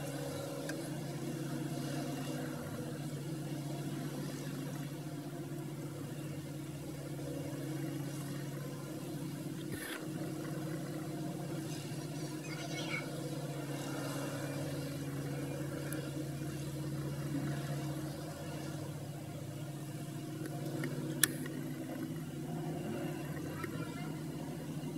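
Diesel engines of large wheel loaders running, a steady low drone, with a sharp click about 21 seconds in.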